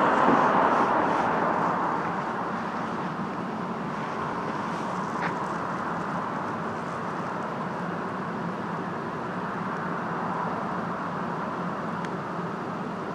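Steady hum of road traffic, louder at first and easing off over the first two seconds as a vehicle passes, with a faint click about five seconds in.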